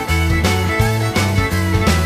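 Background music with a steady beat of about three strokes a second over a bass line.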